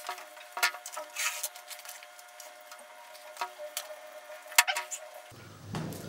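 Eating noises at a table: chewing, with scattered sharp clicks and light scrapes of cutlery against foil trays and plates, the sharpest click about four and a half seconds in.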